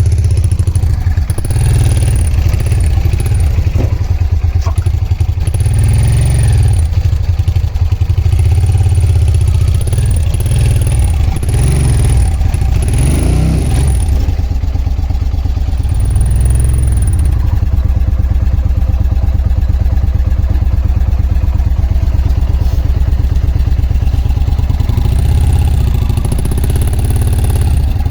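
Suzuki VX800's V-twin engine idling, with several short blips of the throttle that rise and fall in pitch. The bike has a misfire in the rear cylinder.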